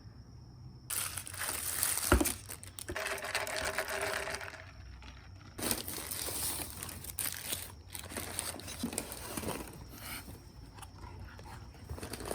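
Food packaging crinkling and rustling as it is handled, in two spells with a short pause between them, and one sharp knock about two seconds in.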